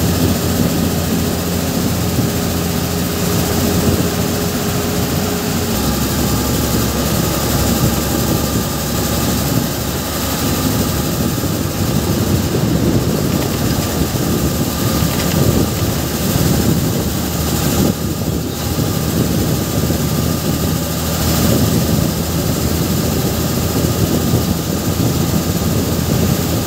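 Large vehicle's engine running steadily under way, with road and wind noise, heard from inside the cab. The low engine tone shifts about six seconds in.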